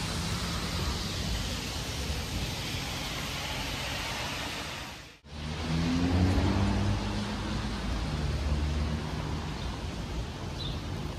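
Steady rushing noise and low hum of a moving vehicle, made of two clips joined by an abrupt cut about five seconds in; after the cut the low engine note rises briefly.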